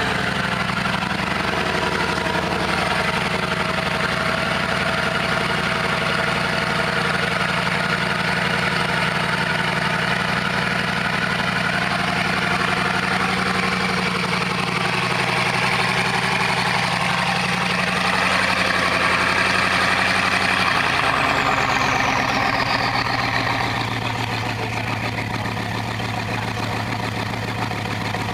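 Bugatti Veyron's quad-turbocharged 8.0-litre W16 engine idling steadily through its sports exhaust. About three-quarters of the way through, the raised idle drops to a lower, deeper idle, and a high whine glides down and fades at the same time.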